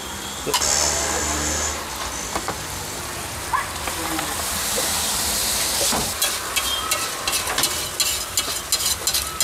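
Egg-and-tomato gravy sizzling on a large hot tawa griddle as water is poured onto it from a bottle, with the hiss strongest around the middle. From about two-thirds in, a metal spatula scrapes and taps rapidly against the griddle.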